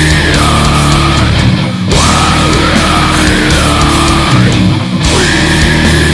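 Heavy metal music with distorted guitars and a dense low end. A high melodic line repeats the same phrase about every three seconds.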